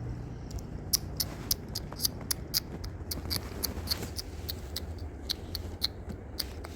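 Cookie-eating sound effect: a quick, uneven run of small crisp crunching clicks, several a second, like nibbling.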